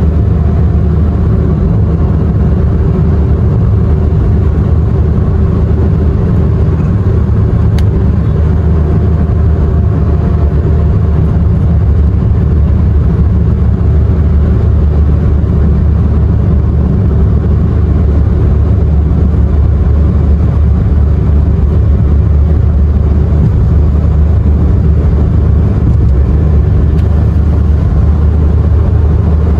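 Car driving along: a steady low engine and road rumble that holds even throughout.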